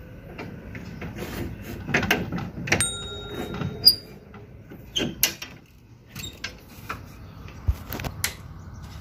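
Scattered sharp clicks and knocks over a low steady background noise, with a few brief high tones near the middle.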